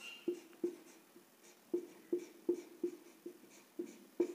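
Marker pen squeaking on a whiteboard in about ten short, uneven strokes as a word is written out.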